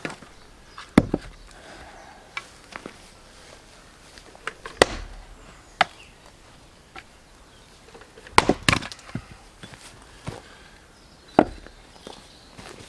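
Axe chopping beech firewood rounds: a sharp wooden strike every few seconds, one of them a quick double blow, with lighter knocks of wood between.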